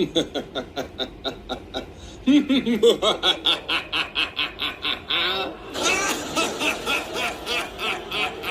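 Voices laughing in quick, repeated ha-ha pulses, with a new laugh starting about two seconds in and another, denser one about halfway through.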